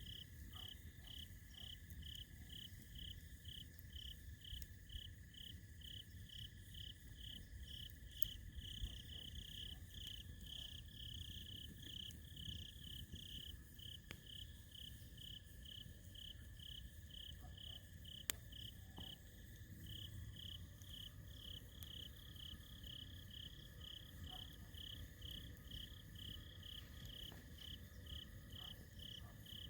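A cricket chirping steadily, about two to three high chirps a second, with a low rumble underneath. A campfire gives a couple of sharp pops, about 8 and 18 seconds in.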